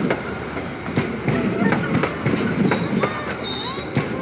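KAI passenger train coaches rolling past close by, a steady rumble with the wheels clacking irregularly over the rail joints.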